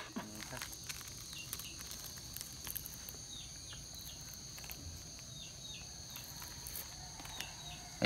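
Steady, high-pitched chorus of insects in dense tropical vegetation. Runs of two to four short falling chirps sound over it several times, about three seconds in, past five seconds and near the end.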